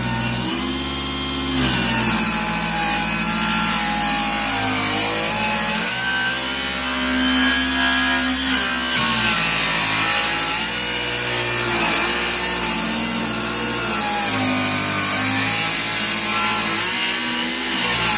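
Electric circular saw running through a long angled cut in wood, its motor pitch sagging and recovering again and again as the blade is pushed along the line.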